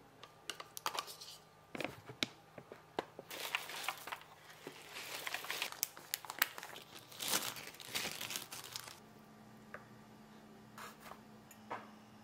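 Plastic granola bag crinkling as it is handled over a bowl, with scattered light clicks and taps in the first few seconds. The crinkling thickens in the middle and stops about nine seconds in.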